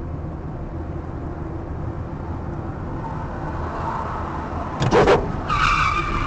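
Car road and engine noise heard inside the cabin at driving speed, growing a little louder. About five seconds in there is a sharp loud noise, then a steady high-pitched squeal near the end.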